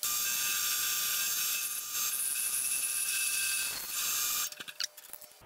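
Milling machine end mill cutting a slot in a metal bar, a steady high-pitched cutting noise that stops about four and a half seconds in, followed by a few light clicks.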